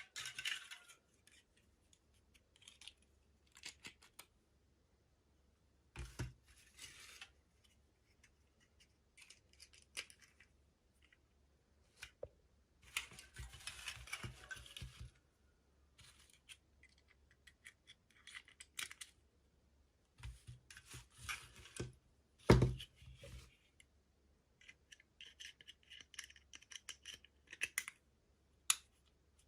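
Small toy packaging being handled and opened by hand: scattered light clicks, taps and crinkling rustles, with a single louder knock about three quarters of the way through.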